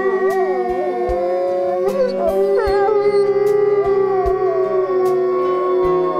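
Gray wolves howling in chorus, several overlapping howls gliding up and down in pitch, over background music with long held notes.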